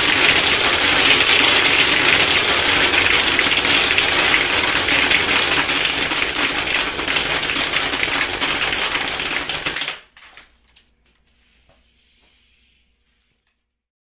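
Compressed air from an air-compressor blowgun blasting through a soda-bottle airsoft gun: a loud steady hiss with a fast rattle of pellets, lasting about ten seconds and cutting off suddenly, followed by a few clicks.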